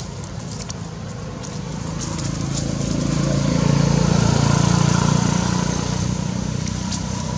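A motor vehicle passing: a low engine sound that swells over a couple of seconds, is loudest about halfway through, then fades. A few faint clicks sit over it.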